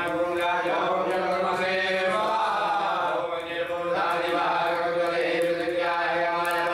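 Male voices chanting Vedic mantras in a steady, sing-song recitation that flows on without pause.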